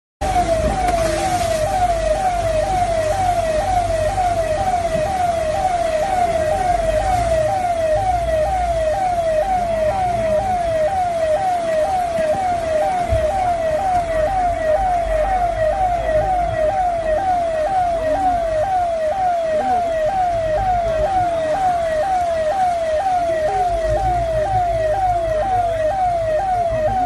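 Electronic siren sounding a falling tone over and over, about one and a half times a second, without a break, over a low rumble that comes and goes.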